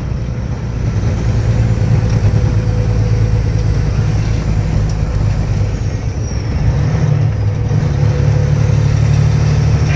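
Loaded heavy truck's engine running steadily under way, heard inside the cab as a low drone with road noise, growing a little louder about a second in.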